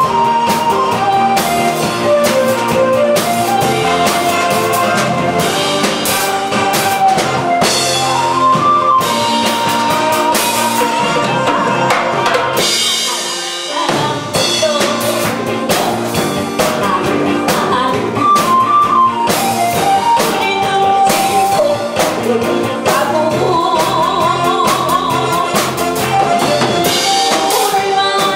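Amplified live music: a backing track with a drum kit played along, and an older woman singing into a microphone with a wavering vibrato. The music thins out briefly about halfway through, then carries on.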